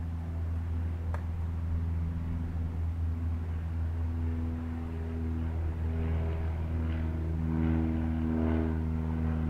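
Propeller aircraft engine droning, with a steady low hum and a pitched engine tone that grows louder over the last few seconds as the plane comes closer.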